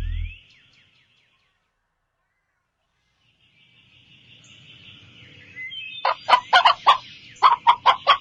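A low animal call cuts off in the first half second, then silence. From about three and a half seconds birds chirp faintly, and from about six seconds chickens cluck in a quick run of loud, sharp calls.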